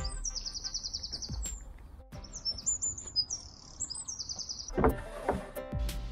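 Songbirds chirping and trilling rapidly and busily, over faint background music with a low beat. About five seconds in the birdsong stops and the music comes to the fore.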